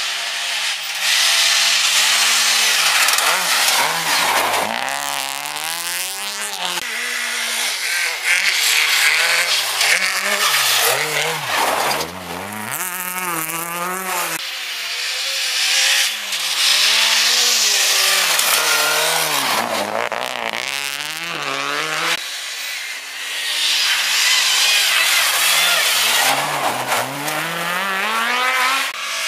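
Rally car engines revving hard as several cars pass one after another, the pitch repeatedly climbing and dropping as the drivers accelerate, lift and change gear, over a steady hiss of tyres on the snowy road. The sound changes abruptly about a quarter, half and three quarters of the way through as one car's pass gives way to the next.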